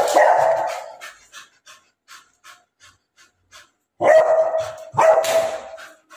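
Beagle barking at a monkey outside the gate. The first bark dies away within about a second, and after a roughly three-second lull two more loud barks follow.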